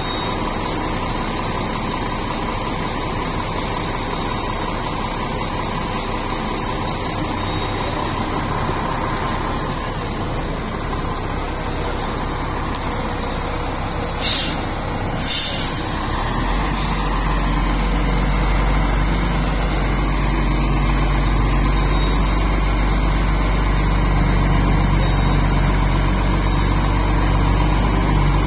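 Heavy diesel engine of a Zoomlion QAY200 all-terrain crane running steadily, with two short sharp hisses of air about halfway through, like air brakes releasing. After them the engine picks up and runs louder and deeper.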